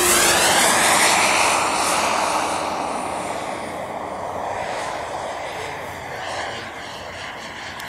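Model airplane flying past low: its engine note drops in pitch as it goes by, loudest at the start and fading steadily as it flies off.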